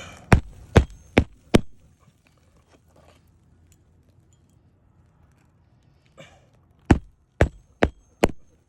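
Hammer driving roofing nails into a shingle: four sharp blows in quick succession, then after a pause about five seconds another four.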